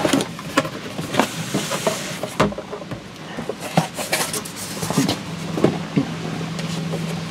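Cardboard box lid lifted off and the packing inside handled: a short scrape of cardboard sliding on cardboard, with scattered taps and knocks.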